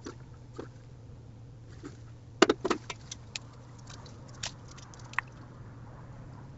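Raccoon handling a hanging bird feeder: a cluster of knocks and rattles about two and a half seconds in, then a few lighter single clicks, over a steady low hum.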